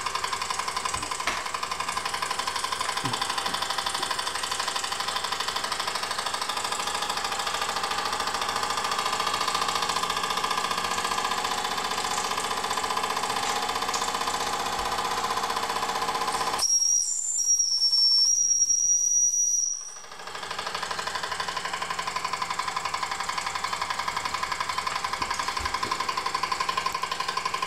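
Wilesco D6 toy steam engine running fast with no load, a steady rapid chuffing from its oscillating cylinder. About two-thirds of the way through, the chuffing gives way to a high, steady whistle of steam for about three seconds, then comes back.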